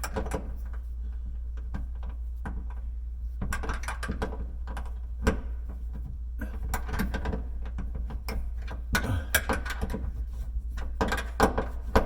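7/16 open-end wrench clicking against the nut of a miter draw bolt as it is turned a bit at a time, in several clusters of small metal clicks and taps.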